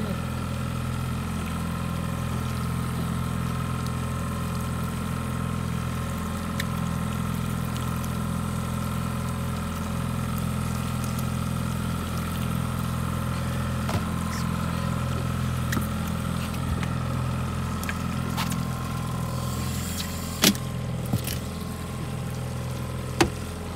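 Outboard boat motor idling steadily, with a couple of sharp knocks near the end.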